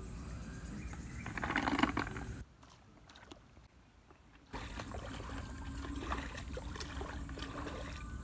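Water sloshing and splashing as a person wades through shallow floodwater, with a louder splash about a second and a half in. The sound drops away for about two seconds in the middle, then the sloshing goes on.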